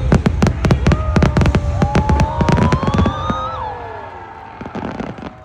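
Fireworks going off in a rapid volley, many bangs close together for about three seconds, then thinning to a few last pops. Over the middle of the volley a tone rises and then falls away.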